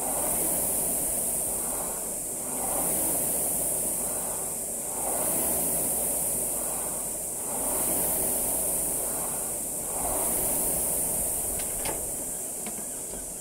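Rowing machine flywheel whooshing with each stroke, swelling and fading about once every two and a half seconds. The sound dies away near the end with a few sharp clicks as the rowing stops and the flywheel spins down.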